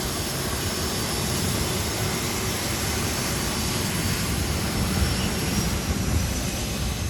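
Airplane engines running with a steady noise, with a faint high whine that rises slowly in the second half.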